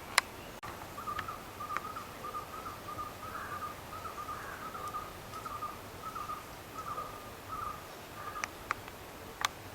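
A bird calling a long run of short, similar notes at one pitch, about three a second, for roughly seven seconds. A few sharp clicks stand out, the loudest right at the start.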